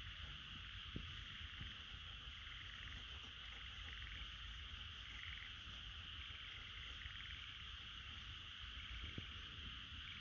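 Steady high buzz of an insect chorus over a low rumble, with a couple of faint ticks.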